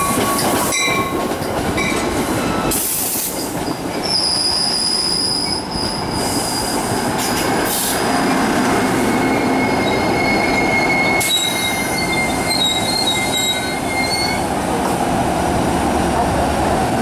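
New Jersey Transit passenger coaches rolling past close by with a steady rumble of wheels on rail. The wheels squeal in several high, steady whines that come and go.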